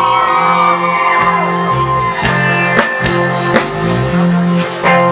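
A live band plays an instrumental passage of a Pakistani pop-rock song, with drums keeping the beat and a bass guitar stepping between notes. A lead instrument holds high notes and slides between them.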